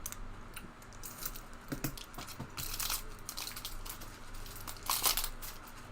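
Foil trading-card packs and cards being handled: scattered crinkling, rustling and tearing, loudest around three seconds in and again about five seconds in.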